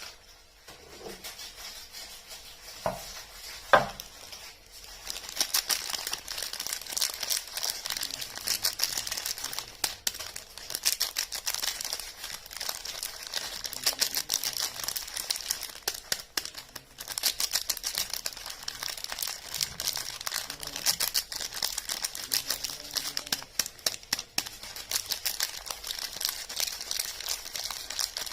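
Soap packaging being unwrapped by hand: after two sharp taps a few seconds in, a dense, continuous run of crinkling crackles from the wrapper.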